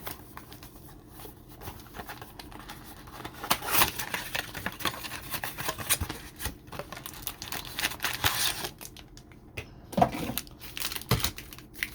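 Trading card packs and cards being handled on a table: scattered light clicks and taps with brief rustles of packaging, a few louder ones about four seconds in and again near the end.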